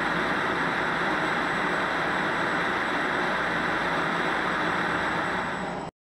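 Analogue TV static hiss: a steady white-noise rush that cuts off abruptly near the end.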